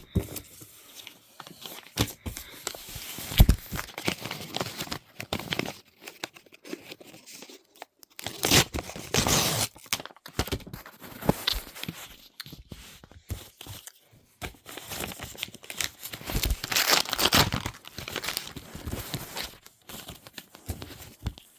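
Packaging being torn open and crinkled by hand: irregular rustling and tearing with scattered clicks and knocks. The loudest tears come about 8 seconds in and again near 17 seconds.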